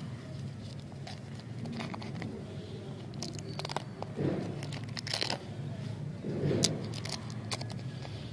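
Foil-lined candy wrapper being torn open and crinkled by hand as a chocolate lollipop is unwrapped: irregular sharp crackles, loudest and busiest between about four and seven seconds in.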